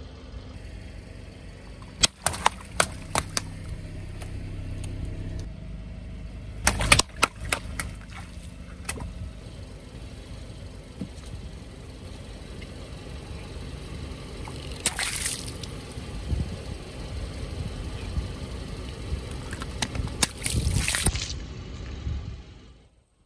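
A car engine running slowly while balloons burst under it, with sharp pops about two seconds in and a loud cluster of pops near seven seconds. Later, water balloons burst with splashing, once at about fifteen seconds and again near twenty-one seconds.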